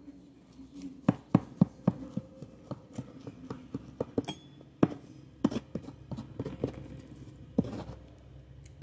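Table knife cutting down through a soft homemade loaf: an irregular string of short soft clicks and knocks, about three a second.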